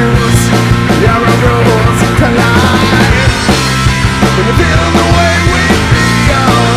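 A rock band playing a song live, electric guitar to the fore, loud and with a steady beat.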